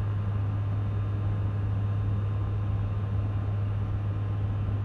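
Four turboprop engines of a Lockheed WC-130J at takeoff power during the takeoff roll, heard inside the cockpit as a steady low drone under a constant rush of noise.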